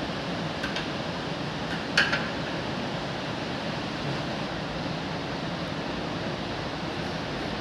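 Steady fan-like background noise with a few light clicks and taps of fittings being handled, the sharpest about two seconds in.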